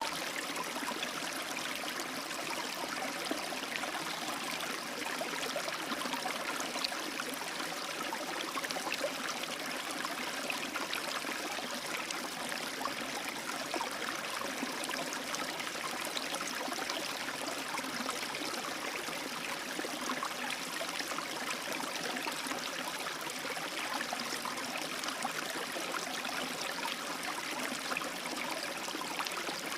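A small stream running over a shallow rapid, a steady babble and splash of water.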